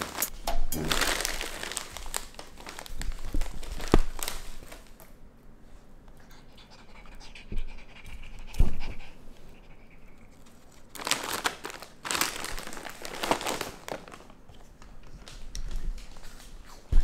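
Pet raccoon panting and sniffing close up, in rough bursts with a quieter stretch in the middle, plus a couple of sharp knocks.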